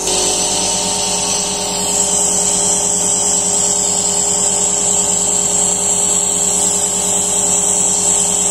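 Super Care compressor nebulizer's electric air compressor switched on and running, a steady buzzing hum with a high hiss above it.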